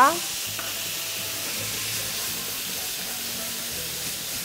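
Browned rabbit pieces sizzling in a hot frying pan, with a steady hiss as a splash of lemon juice poured in to deglaze boils off as steam.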